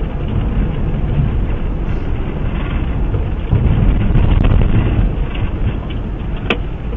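Road and wind noise of a police patrol car driving at speed, heard through its dash camera. The rumble grows louder about halfway through, and a single sharp click comes near the end.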